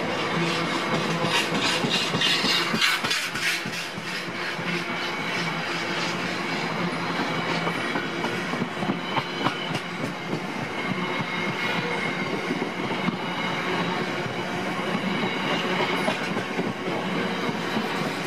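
Freight train of tank wagons rolling past close by. Its wheels click over rail joints in a fast run over the first few seconds, then keep up a steady rolling noise with occasional clicks.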